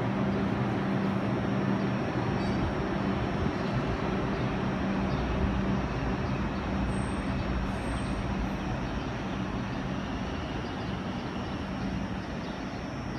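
New York City Subway R142 train running on the line, a steady rumble and wheel noise with a low hum that drops out about halfway, slowly fading toward the end.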